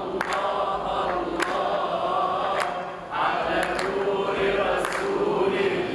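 A group of voices singing an Islamic devotional chant (inshad) in long held phrases, with a short break about three seconds in. Sharp hand claps keep a slow beat, about one a second.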